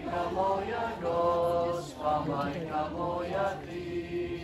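Voices singing a slow, chant-like hymn with long held notes; near the end a single lower note is held.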